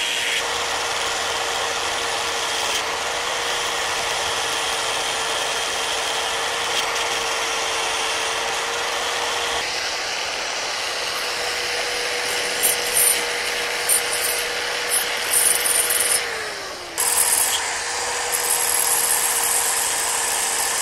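Small power grinding tool running with a steady whine while grinding rust out of a brake caliper bracket's pad slide grooves, with sharper scraping spikes in the second half. The motor slows briefly near the end and picks up again. The rust had swollen the grooves so the brake pads could not slide freely.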